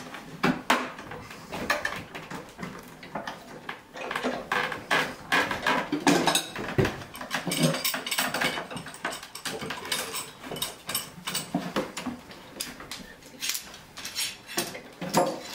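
Metal F-clamps and bar clamps clattering and clicking in quick, irregular knocks as several people fit and screw them tight around steamed ash on a bending form.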